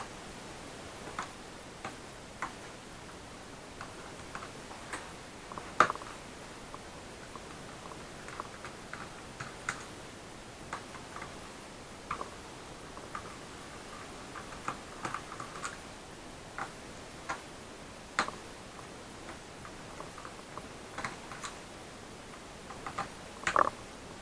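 Irregular small clicks and taps of hands and tools working on a laptop during disassembly, over a steady background hiss. The loudest click comes about six seconds in and a cluster comes near the end.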